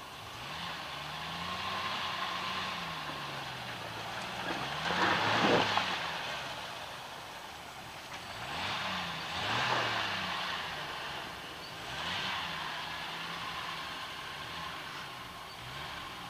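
Jeep Wrangler engine revving up and down in repeated surges as the Jeep crawls over rock ledges. The loudest surge is about five seconds in, with further surges about nine and twelve seconds in.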